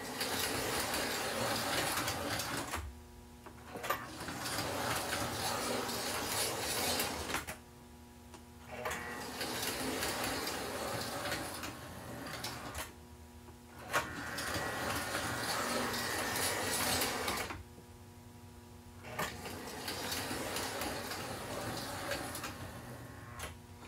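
American Flyer toy diesel locomotive's electric motor and gears running on tin-plate track in five runs of a few seconds each, separated by short pauses where the power is cut and only a steady hum remains, with a click as some runs start. Each power cut cycles the two-position reverse unit, which is now switching direction again after being freed with CRC 2-26, so the train alternates between forward and reverse.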